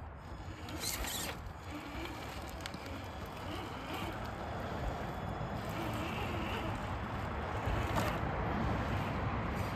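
Electric motor and gear drivetrain of a Traxxas TRX-4 RC crawler whirring in short spurts as it crawls over loose rocks and dirt, with a couple of sharp clicks.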